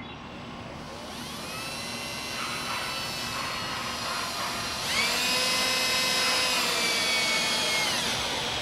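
Electric power tool motor whining, its pitch stepping up about halfway through and then winding down near the end.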